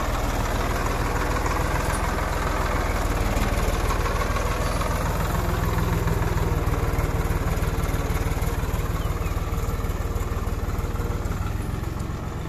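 Swaraj 960 FE tractor's three-cylinder diesel engine running steadily under load as the tractor drives through soft, muddy ground.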